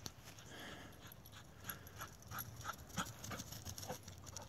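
Dog breathing faintly in a run of short, quick puffs.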